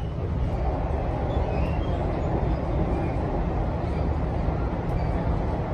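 Steady rumble of a Taiwan Railways Tze-Chiang express running at speed, heard inside the passenger car, thickening about half a second in as the train enters a tunnel.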